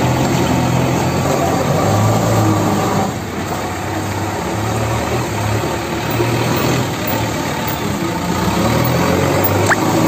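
JCB 3DX Eco backhoe loader's diesel engine running under load as the machine drives forward and lifts its loaded front bucket, the engine note rising and falling. A brief rising squeak near the end.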